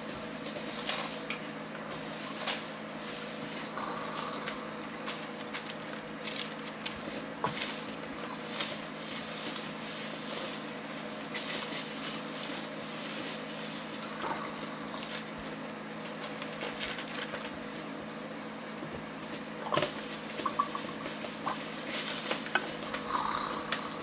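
A clothes iron sliding back and forth over waxed craft paper on a padded ironing board, pressing it onto cotton fabric: uneven paper rustling and scraping with small knocks, over a steady low hum.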